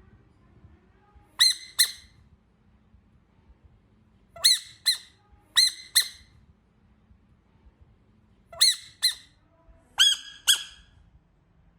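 A frog giving short, high-pitched squeaks in quick pairs, five pairs in all, each call arching up and down in pitch.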